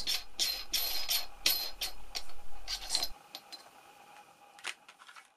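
Front bezel ring of a Makinon 24mm f2.8 lens being unscrewed by hand: a quick run of small clicks and scrapes from the ring turning on its thread for about three seconds, then a single click near the end.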